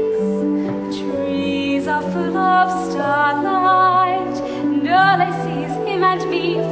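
A woman singing a slow, tender stage-musical ballad with vibrato on her held notes, over a sustained instrumental accompaniment.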